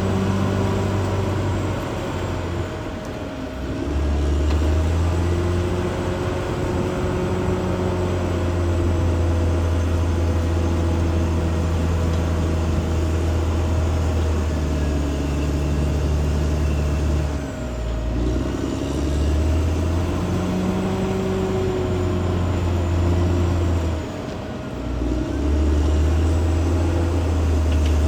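Caterpillar D6R XL bulldozer's diesel engine running steadily under load while it works. The engine note drops and recovers three times: about 3 seconds in, about 17 seconds in and near 24 seconds in.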